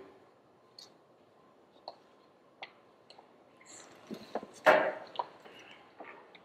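Soft handling noise as a cloth face mask is put on and a book is picked up: scattered small clicks and rustles, then a busier run of rustling with one sharper click about five seconds in.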